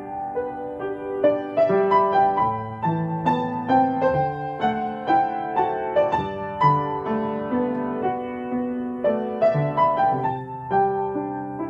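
Solo piano playing a slow, gentle new-age piece: a melody of single struck notes ringing over low bass notes.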